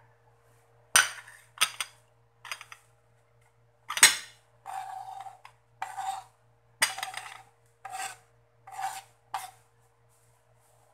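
A ceramic plate set down with a few sharp clacks, then a kitchen knife scraping sliced hard-boiled egg off a wooden cutting board onto the plate: a run of short scrapes about one a second, with the plate ringing faintly.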